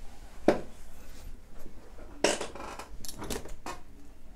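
A few light knocks and clinks, about five in all: the loudest about half a second in and just after two seconds, then three quicker ones near the end.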